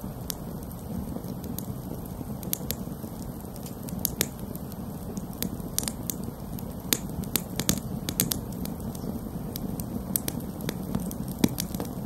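Campfire of split wood stacked in a teepee, burning steadily. A low rush of flame runs under irregular crackles and sharp pops from the burning wood, with a cluster of louder snaps a little past the middle.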